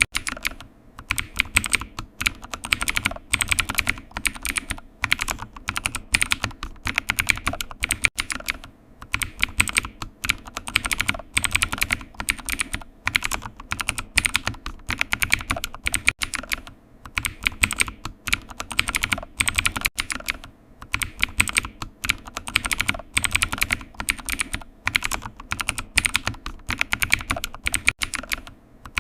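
Typing on a computer keyboard: continuous runs of quick key clicks broken by brief pauses.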